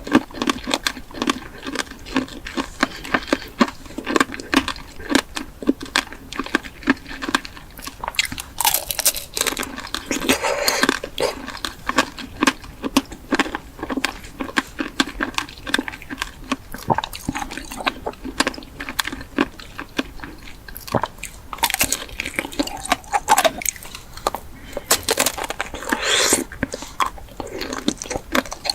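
Close-miked crunchy eating: a person biting and chewing crisp food, with many sharp crunching clicks and louder spells of crunching now and then.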